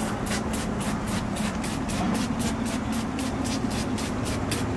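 Trigger spray bottle of non-acid wheel cleaner squeezed rapidly onto a tire and wheel, a short hiss with each pull, about three to four a second. A steady low hum runs underneath.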